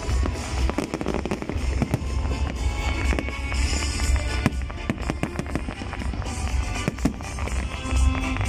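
Fireworks display with shells bursting in quick succession, many sharp bangs and crackles overlapping, while music plays underneath.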